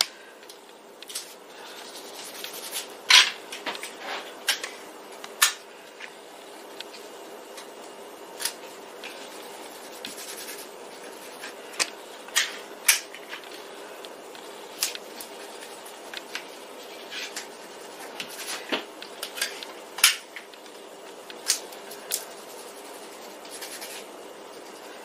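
Hands taping a print down onto a paper mat board with a handheld tape dispenser: scattered small clicks and taps, with soft rubbing as the tape is pressed flat. A faint steady hum runs underneath.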